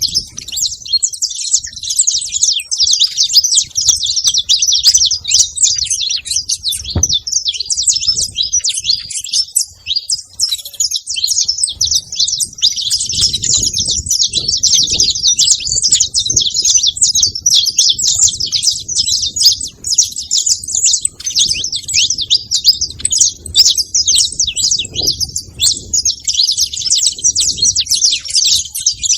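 Saffron finches (canário-da-terra) chirping rapidly and without pause, a dense run of high, quick notes, over a faint low rumble.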